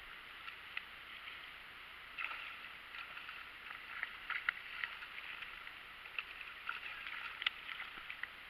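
Water lapping and small splashes close to the surface, with many quick, irregular light ticks of water from about two seconds in.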